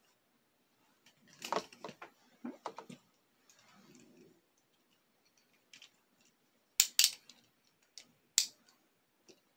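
Hard plastic clicks and rattles from Beyblade tops and launchers being handled and fitted together. A cluster of clicks comes about one to three seconds in, then a soft rustle, and a few sharp snaps come around seven and eight and a half seconds.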